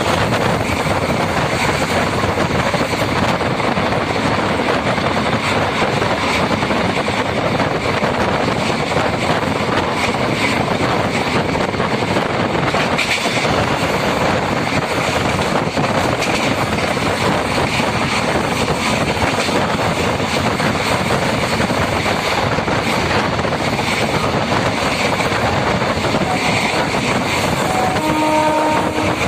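MEMU electric multiple-unit train running: a steady, loud rumble and rush of wheels on the rails, with a brief pitched tone about a second before the end.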